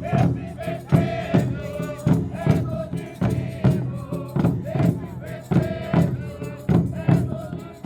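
A group singing a devotional folk song, with a drum and shakers beating a steady rhythm of about two strokes a second.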